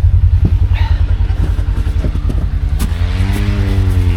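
Side-by-side UTV engine running with a heavy, evenly pulsing low beat; about three seconds in a higher engine note comes in and climbs slightly.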